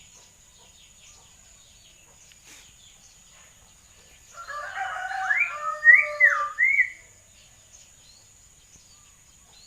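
Hill myna calling: a run of loud gliding whistles and warbles, some rising sharply in pitch, lasting about two and a half seconds in the middle.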